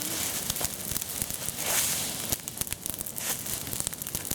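Bonfire of dry autumn leaves burning, with dense irregular crackling and a brief louder hiss about two seconds in.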